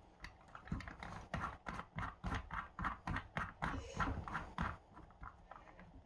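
Irregular light clicks and taps, a few a second, from small metal drill bits being handled and sorted at a drill-bit stand.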